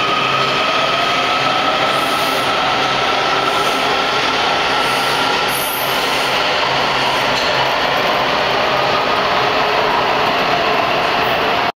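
Washington Metro 7000-series subway train accelerating away from the platform: steady wheel and running noise with a traction-motor whine that slowly rises in pitch as it gathers speed.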